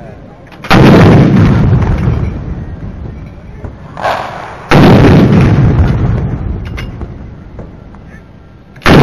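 Towed artillery guns firing a 21-gun salute: three loud booms about four seconds apart, each followed by a long rolling echo that dies away slowly.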